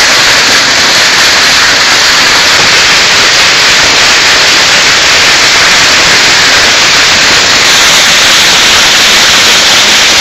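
Hailstorm: hail and rain pelting down in a loud, dense, unbroken hiss.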